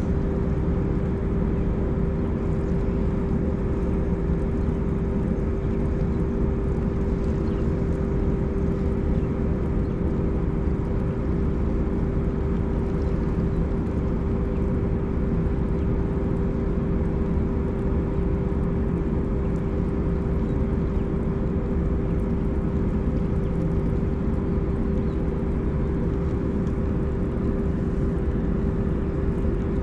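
A steady mechanical drone: one constant humming tone over a low rumble, unchanging throughout, with no knocks or sudden sounds.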